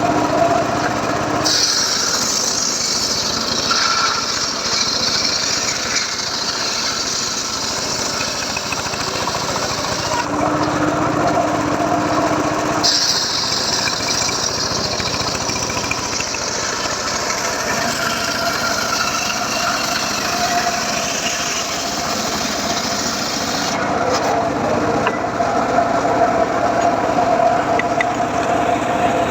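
Homemade circular saw rig running continuously while sawing teak wood. A hissing high part of the sound drops out twice, once about ten seconds in and again near the end.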